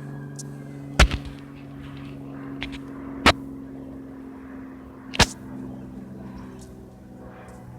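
A steady low hum with three sharp clicks, spaced about two seconds apart.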